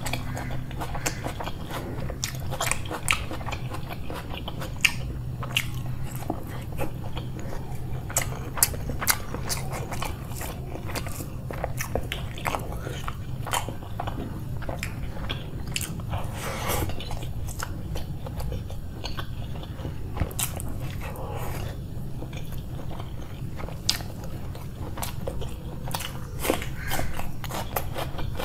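Close-miked eating sounds: a person chewing and biting crunchy food, with irregular sharp crunches and wet mouth clicks throughout, over a steady low hum.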